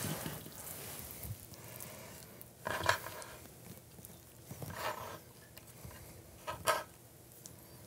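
Quiet hand-handling noises of prosciutto slices and a raw salmon fillet being laid and folded on a wooden cutting board: three short soft rustles, roughly two seconds apart.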